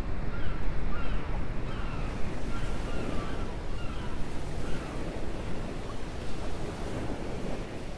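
Seashore harbour ambience: wind rumbling on the microphone over the wash of sea waves, with short high chirps during the first five seconds.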